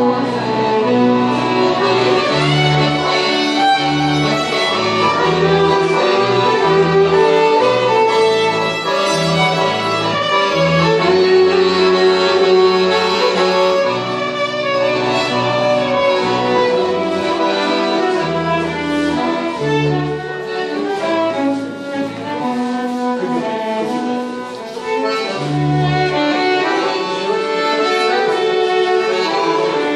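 Three fiddles and an accordion playing a tune together live, with low bass notes sounding underneath the fiddle melody.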